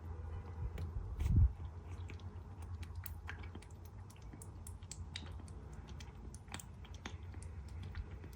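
Kitten eating: a run of small, wet chewing clicks over a low steady hum, with a louder thump about a second in.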